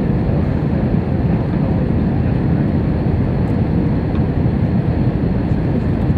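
Steady low rumble of engine and airflow noise inside an Airbus A321's cabin during the descent on approach to landing, heard from a seat over the wing.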